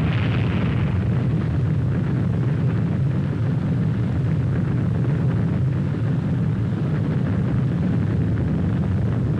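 A loud, steady low rumble of noise with no separate blasts, its hiss in the upper range easing off after about a second.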